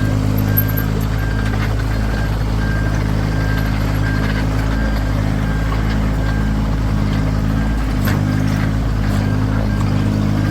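Excavator's diesel engine running steadily, with a high warning beeper repeating at a regular rate over it.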